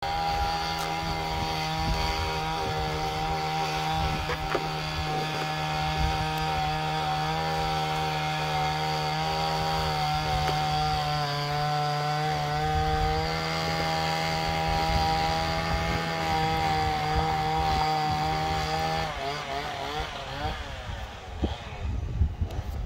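Chainsaw running at a steady high speed while cutting a tree. About 19 seconds in, its note wavers up and down and then falls away into uneven sound.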